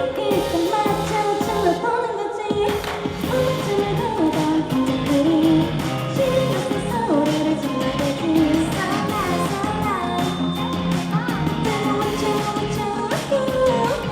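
Live pop-rock band playing, with a female lead voice singing over guitar, bass and drums.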